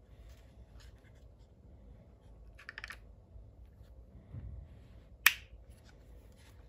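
Plastic clicks and handling noise from a Milwaukee laser level, with a short rattle of clicks near three seconds in and a dull bump after four seconds. About five seconds in comes one sharp, loud snap as its rotary power and pendulum-lock knob is turned.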